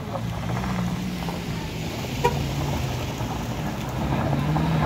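A Toyota Avanza's engine running as the car climbs past on a rough dirt road, then a second small SUV's engine growing louder as it comes up the slope. A single sharp click about two seconds in.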